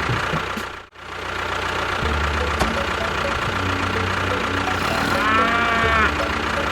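An engine-like motor runs steadily and drops out briefly about a second in. A short pitched call that rises and falls is heard a little past the midpoint.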